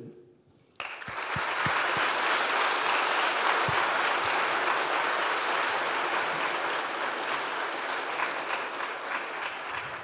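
Audience applauding, starting suddenly about a second in and slowly tapering off near the end.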